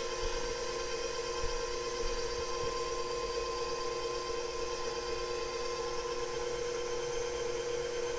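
KitchenAid stand mixer motor running steadily at low speed (speed 2), driving the pasta roller attachment as dough is rolled, a constant even hum.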